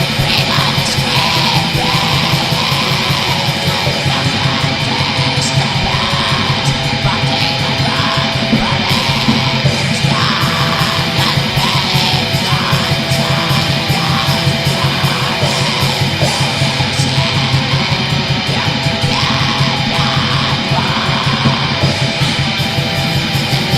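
Black metal recording: loud, dense distorted electric guitars over continuous fast drumming.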